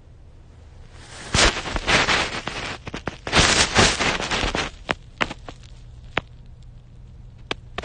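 Fleece fabric rubbing and scraping against the phone's microphone as the phone is pressed close to a fuzzy hood. There are bursts of rustling from about a second in until nearly five seconds, then a few sharp clicks.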